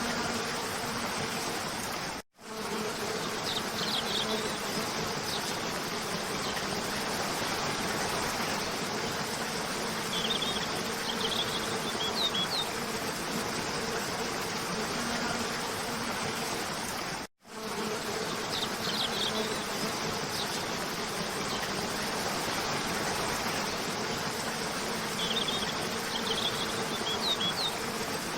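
Cascading waterfall rushing steadily, with a faint low hum underneath, and small groups of short bird chirps a few times. The sound cuts out for an instant twice, about fifteen seconds apart, where the loop restarts.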